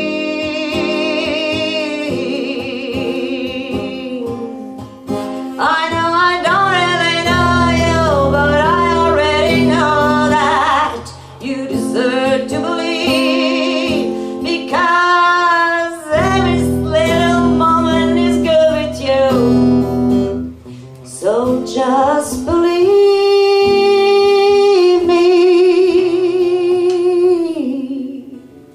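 A woman singing a slow song to acoustic guitar, holding long notes with vibrato, with short pauses between phrases; the music fades out near the end.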